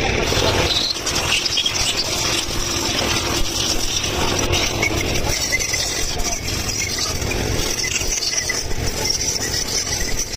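Compressed air hissing steadily from a blow gun as a stripped diesel engine block is blown clean, the hiss wavering a little as the nozzle moves over the block.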